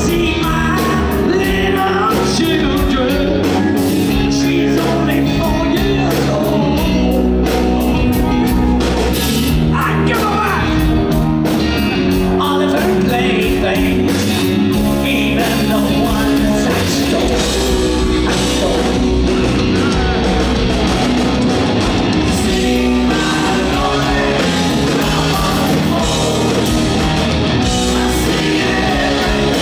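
Live hard rock band playing with guitars and drums while a male lead singer sings, heard from within a concert audience.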